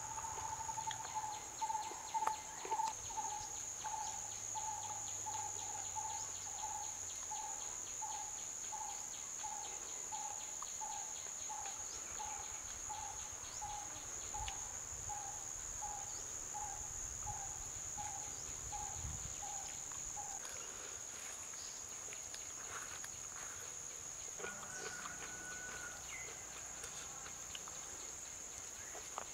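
A steady high-pitched insect drone throughout. Over it a bird repeats a single short note about one and a half times a second, stopping about two-thirds of the way through.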